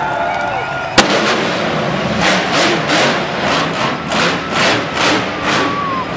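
Monster truck show in a stadium: a single sharp bang about a second in, then a run of rhythmic noisy bursts, roughly two to three a second, over the arena's steady din.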